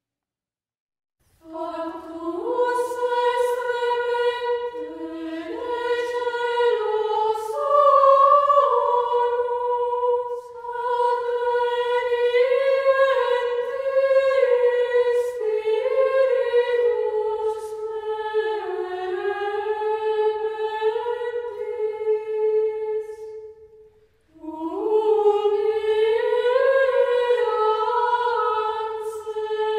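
Unaccompanied vocal music: slow, sustained sung notes moving stepwise in pitch, in the manner of sacred chant. It starts about a second and a half in and breaks off briefly near the end before resuming.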